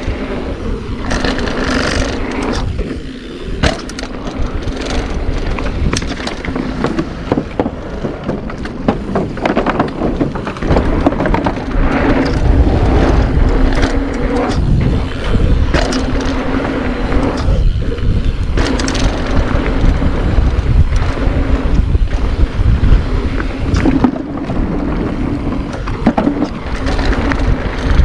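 Mountain bike riding fast down a dirt bike-park trail: knobby tyres rolling over the dirt with a steady hum, frequent rattles and clunks over bumps, and wind buffeting the microphone.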